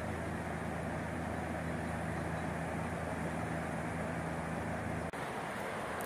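Steady rush of a fast-flowing river, with a steady low hum underneath. The hum stops abruptly about five seconds in, and the rush carries on without it.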